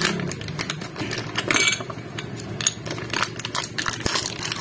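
Plastic and paper packaging of a new clutch shoe set crinkling and rustling as it is torn open by hand, with irregular light clicks and clinks.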